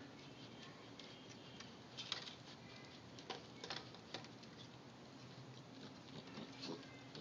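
Faint, scattered clicks and light pattering of a raccoon's claws on wooden deck boards as it moves about. The taps come in small clusters: a couple of seconds in, around the middle, and again near the end.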